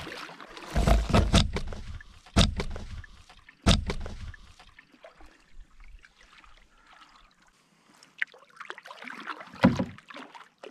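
Wooden canoe paddle strokes in river water, splashing and gurgling past the canoe. There are three loud strokes in the first four seconds, quieter paddling in the middle, and the strokes pick up again near the end.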